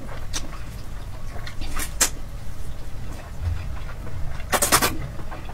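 Close-miked eating sounds of glass noodles being slurped and chewed: short wet smacks and sucking noises, with a quick run of several near the end.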